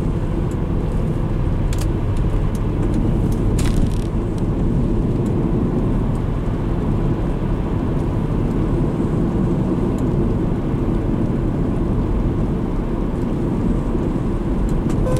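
Steady in-cabin drone of a 2002 Subaru Legacy Blitzen on the move: its flat-four boxer engine and road noise, mostly a low rumble. Two short clicks sound about two and four seconds in.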